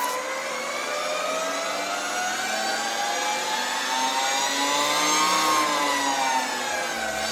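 Harley-Davidson LiveWire's electric motor whining under acceleration. The whine rises steadily in pitch for about five seconds, then falls away near the end.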